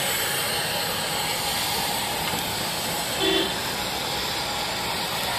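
Steady engine noise with a strong hiss, from aircraft and military vehicles on an airport apron. A short pitched tone sounds about three seconds in.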